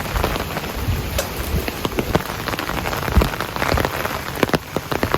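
Heavy downpour: a steady rush of rain with many close drops hitting in sharp individual splats.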